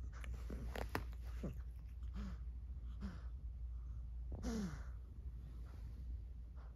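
A cat's short, noisy breaths, several with a brief sound that slides down in pitch, coming in quick succession through the first three seconds and once more, most strongly, about four and a half seconds in. These are the laboured breathing sounds of a cat in post-seizure convulsions.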